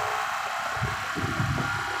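A vehicle running, with a steady hiss and faint whine over an uneven low rumble.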